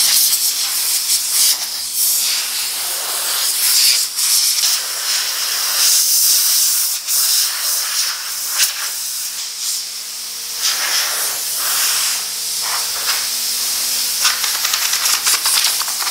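Compressed-air blow gun hissing in long blasts of changing strength, with a few brief breaks, as it blows dust off parts before they are base-coated.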